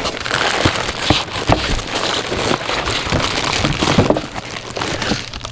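Plastic packaging crinkling and rustling as items are lifted out of a product box, with scattered sharp clicks and knocks of handling.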